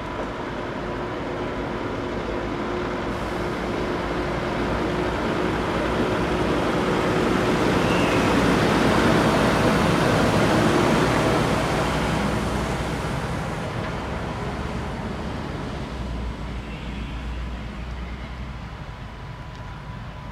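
A fire engine driving past: its diesel engine and tyre noise swell as it approaches, peak as it passes, then fade as it moves away. No siren sounds.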